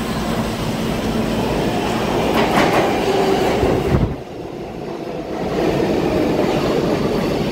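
New York City subway 7 train, R188 cars, moving along the platform: steady rumble and rail noise. About four seconds in the sound drops sharply, then builds back up a second and a half later.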